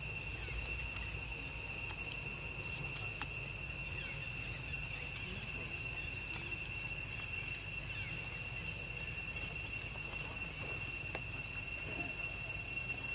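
Insects droning steadily at one high pitch, with a low rumble underneath.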